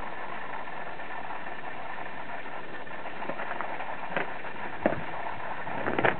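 A steady background hum, with a few footsteps on gravel about four, five and six seconds in.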